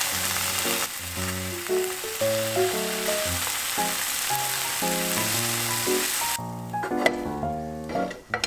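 Sliced smoked duck breast sizzling in a frying pan as it is stirred with chopsticks, over background music. The sizzle stops suddenly about two-thirds of the way through, followed by a few light clicks.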